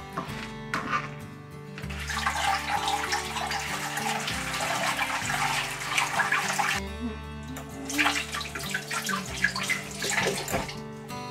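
Kitchen tap running into a stainless sink as vegetables are rinsed under it, in two stretches of a few seconds each with a short break between. Background music plays throughout.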